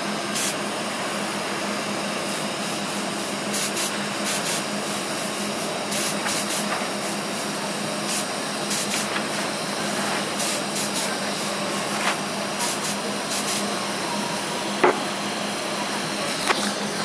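TIG (gas tungsten arc) welding arc on ASTM A335 P11 chrome-moly steel pipe during the root pass: a steady hiss with a low hum under it and short crackles every so often, and one sharp click near the end.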